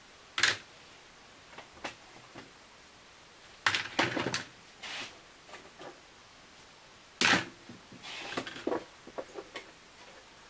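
Clacks and knocks of quick-release bar clamps being released and laid down on a wooden workbench: irregular sharp clicks, with louder clatters about four seconds in and again after seven seconds.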